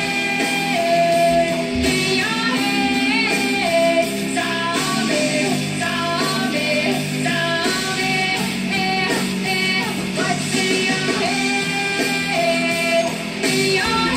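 Rock music playing, with guitar and a gliding melodic lead line over a steady accompaniment.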